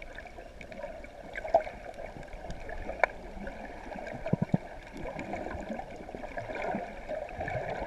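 Underwater sound picked up by a submerged camera: a steady, muffled water hiss with scattered faint clicks, a sharper click about a second and a half in and another about three seconds in, and a couple of low thumps a little after four seconds.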